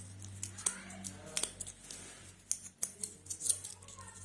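Kinder Surprise eggs being handled and opened: the foil wrapper crackles and the plastic capsules snap and click in a run of irregular sharp clicks.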